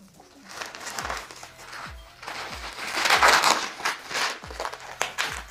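Plastic wrapping crinkling and rustling as it is handled and pulled off a bicycle frame, loudest about three seconds in. Background music with a steady kick-drum beat plays underneath.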